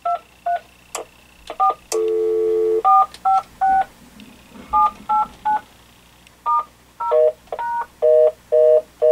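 Touch-tone (DTMF) dialing on an AT&T CL83213 DECT 6.0 cordless phone: about a dozen separate two-note key beeps as the number keys are pressed one by one to test them. A steady low tone sounds for about a second around two seconds in, and near the end a lower beep repeats rapidly, several times a second.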